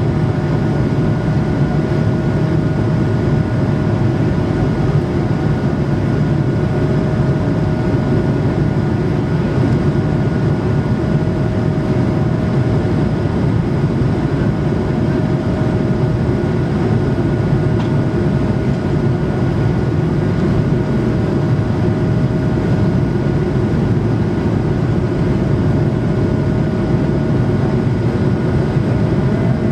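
Airbus A220-300 cabin noise: the Pratt & Whitney PW1500G geared turbofans run at steady power under a loud, even rush of air, with a steady high engine tone over it.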